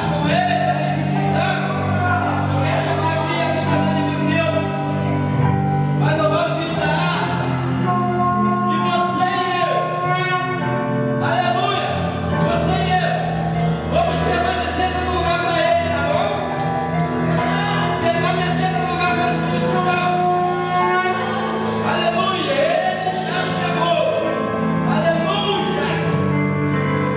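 Electronic keyboard playing a slow worship-song melody over sustained chords and bass.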